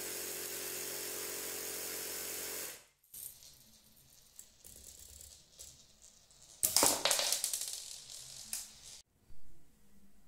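A small air compressor runs steadily with a hum and cuts off after about three seconds, topping up the homemade BB gun's compressed-air bottle after a shot. A few seconds later comes a loud, sudden hiss of air as the gun fires, with clattering, and a shorter burst near the end.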